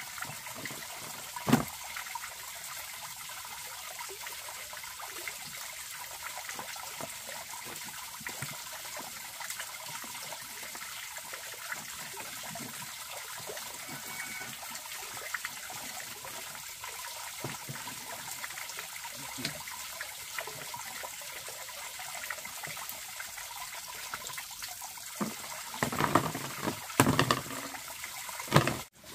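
Steady trickle of running water, with one sharp knock about a second and a half in and a few louder knocks near the end.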